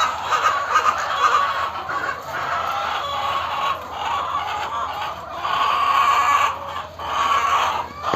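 A large flock of layer hens clucking and squawking all at once in a continuous, loud racket, with a few short lulls.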